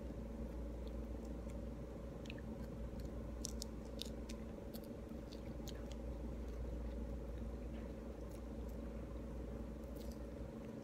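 Pomelo being peeled by hand and eaten: scattered small clicks and crackles of the segment membrane tearing and of chewing. A steady low hum runs underneath.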